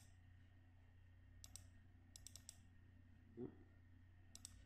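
Faint computer mouse clicks in three quick clusters of two to four, over a steady low electrical hum, with one brief low sound about three and a half seconds in.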